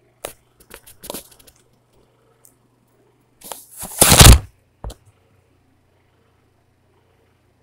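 Handling noise from the recording phone: a few sharp clicks and knocks, then a loud scraping rustle about four seconds in as the microphone is rubbed and covered, and one last click.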